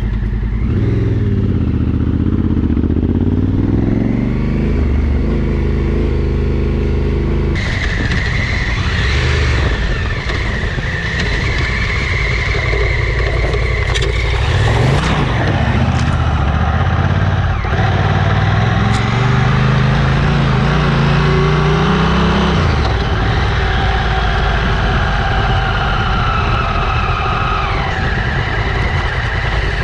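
Adventure motorcycle engine running under way off-road, the revs rising and falling with the throttle and gear changes. The sound changes abruptly about seven seconds in, where the recording switches to a microphone down by the front wheel.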